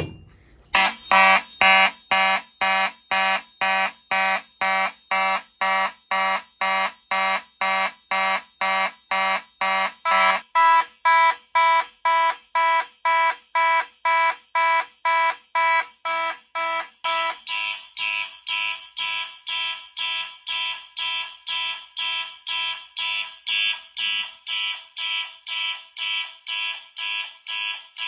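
Simplex and Faraday fire alarm horns sounding together after a Faraday pull station is pulled. They blare in evenly spaced blasts, about two a second (march-time coding). About seventeen seconds in, the mix of tones shifts toward a higher, brighter horn.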